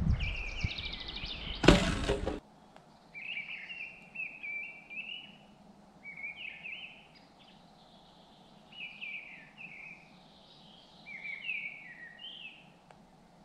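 Rustling handling noise that ends in one loud thump a little under two seconds in. Then songbirds sing short phrases of sliding chirps every second or two over a quiet forest background.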